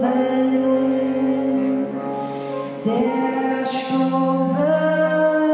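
A woman singing into a microphone over a small wind ensemble of soprano saxophone, bass clarinet and trombone holding long chords. The chord changes about two seconds in and again near the end, with a short breathy hiss at about four seconds.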